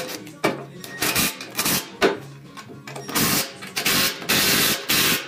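Cordless power driver running in short bursts, driving a bolt into a lawn tractor's front steering spindle, with longer runs between about 3 and 5 seconds in.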